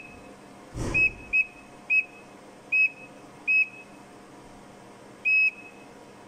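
Electronic beeper of a PDP-11-based CNC controller giving five short, high beeps at uneven intervals as keys are pressed at its console prompt, then one longer beep near the end as the system comes up ready. A brief rustle of handling comes just before the first beep, over a faint steady hum.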